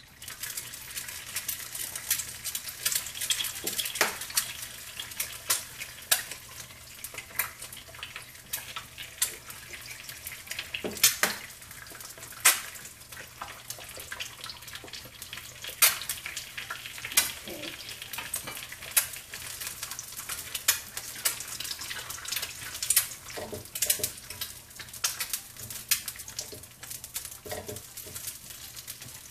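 Three eggs frying in hot oil in a nonstick frying pan: a sizzle that starts as they go in and carries on steadily, with frequent sharp crackles and pops.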